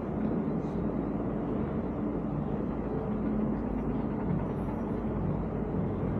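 Street traffic: a steady low rumble of vehicle engines with a faint hum.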